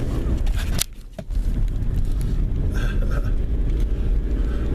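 Car engine and road noise heard from inside a moving car, a steady low rumble that drops out briefly about a second in.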